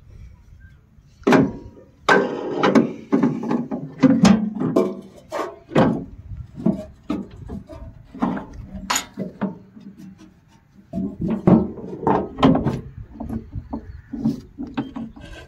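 Metal clinks, knocks and scraping as a two-jaw bearing puller is handled and fitted to the cutter pulley's bearing housing on a combine harvester. The knocks come in a quick irregular run, with a short lull about ten seconds in.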